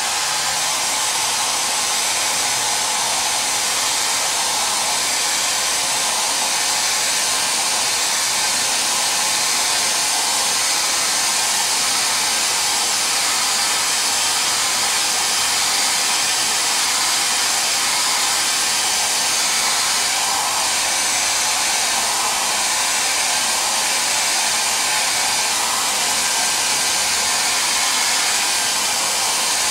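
Handheld hair dryer blowing steadily, drying a fresh coat of water-based leather dye.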